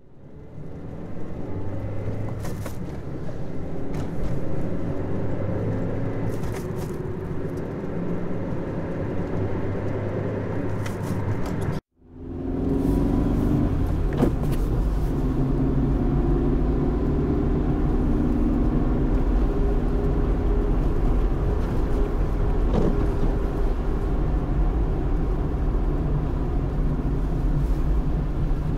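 Car driving along a road, heard from inside the cabin: a steady engine and tyre rumble. It cuts out for a moment about twelve seconds in, then carries on with a deeper, slightly louder rumble.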